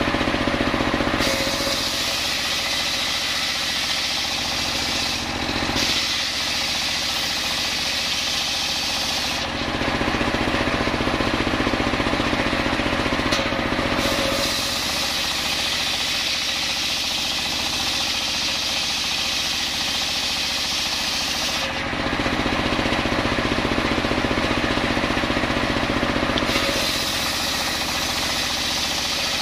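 Homemade engine-driven table circular saw ripping a coconut log lengthwise, the engine running steadily throughout. A high-pitched hiss of the blade in the wood comes in about a second in and drops away twice for a few seconds as the cut goes on in stages.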